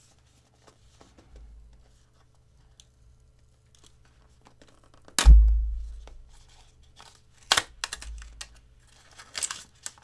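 Cardboard product box being opened by hand: soft clicks and rustling, one sudden loud thump with a low boom about five seconds in, then short bursts of cardboard and paper rustling and tearing as the flaps come open.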